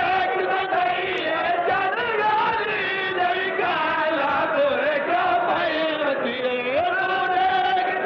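A man chanting a mourning lament in a sung style, with long, wavering held notes and slow slides in pitch.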